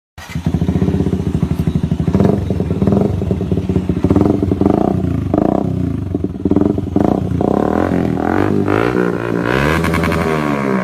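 Single-cylinder motorcycle exhaust idling with an even pulse, then blipped several times. Near the end it is revved in longer rising and falling sweeps.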